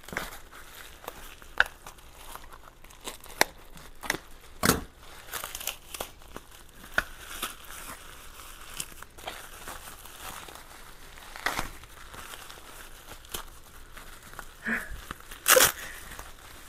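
White plastic packaging wrap crinkling and tearing as a small item is cut and pulled out of it by hand, a steady rustle broken by irregular sharp crackles, two louder ones about five seconds in and near the end.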